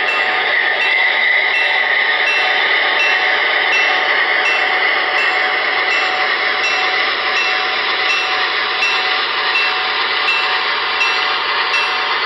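Onboard DCS sound system of an MTH HO-scale model of Great Northern ALCO FA-1/FB-1 diesel locomotives, playing a steady diesel engine running sound as the model rolls along. A faint regular ticking comes about twice a second.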